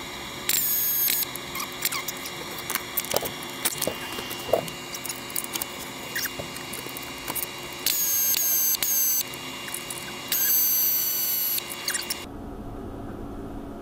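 Hand-tool work under a Tormach mill while its Y-axis ball screw block is being unbolted: three short, high-pitched squeals, each about a second long, amid light metallic clicks and taps.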